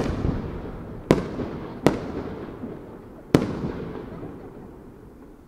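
Aerial firework shells bursting overhead: four sharp bangs, the first at the start, the next about a second and two seconds in, and the last about three and a half seconds in. Each bang is followed by a long echo that trails off, and the sound fades toward the end.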